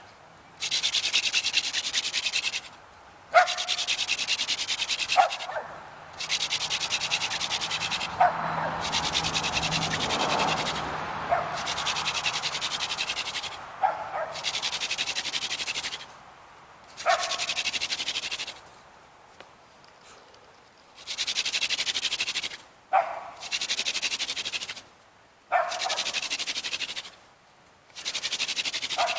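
Horseweed hand-drill spindle spun between the palms in a cedar fireboard: bouts of fast rhythmic rasping of wood on wood, each a few seconds long, broken by short pauses, about eight times. It is the drilling that heats the board and grinds out the hot dust that becomes an ember.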